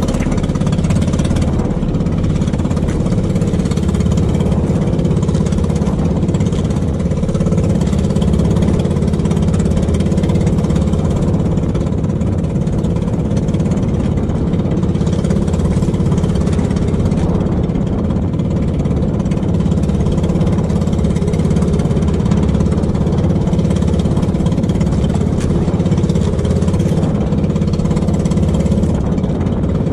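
Small outrigger fishing boat's engine running steadily at trolling speed, an even drone that does not change.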